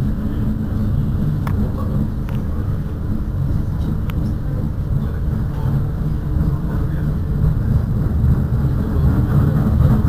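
Bombardier Flexity Outlook tram standing at a stop with its doors open: a steady low hum and rumble, with a few faint clicks, growing a little louder near the end.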